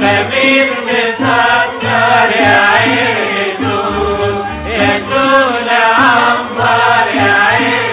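Egyptian song music with a chant-like melody over a regular low beat.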